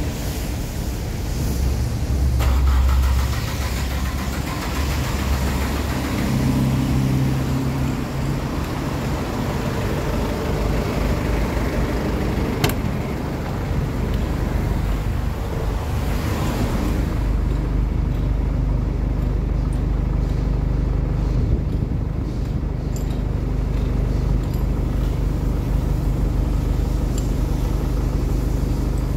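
A vehicle engine running steadily with a low hum. A hiss of noise lies over it for the first half and drops away a little past halfway, and there is a single sharp click near the middle.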